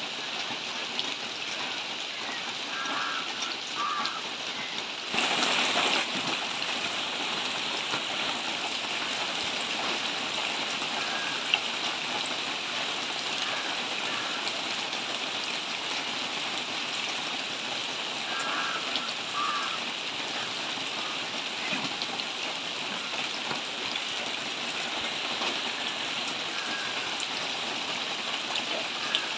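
Steady rain falling, an even hiss, briefly louder for about a second around five seconds in.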